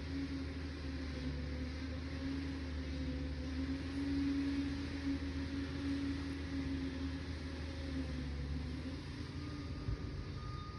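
Liebherr 746 crawler dozer's diesel engine running steadily, with a low rumble under a steady hum; the deepest part of the rumble drops away about nine seconds in.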